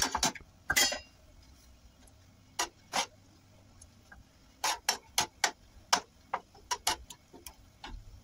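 A knife and spatula clicking and tapping against a metal frying pan as a lump of butter is scraped in and spread: a quick cluster of clicks in the first second, then irregular single taps about every half second from a couple of seconds in.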